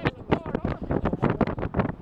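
Wind buffeting the microphone of a camera riding in a moving vehicle: a low rumble broken by a dense, irregular crackle.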